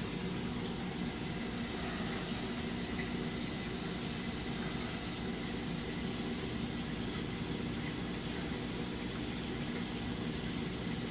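Steady hum of running aquarium equipment with a constant wash of moving water, as from the tank's pumps and filtration.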